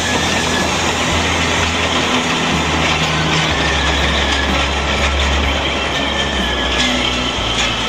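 Narrow-gauge steam locomotive pulling a train away, with a steady loud hiss of steam escaping around its cylinders.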